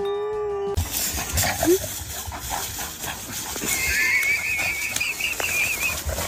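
A held, steady-pitched animal call stops abruptly under a second in. Over a noisy background, a high, wavering animal call then lasts about two seconds near the end.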